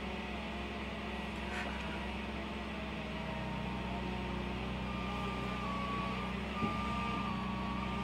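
A steady engine hum, with one brief knock about two-thirds of the way through.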